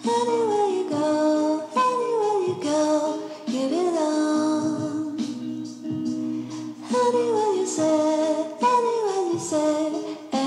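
Background music with a woman's singing voice: a slow melody of held notes and phrases that slide downward.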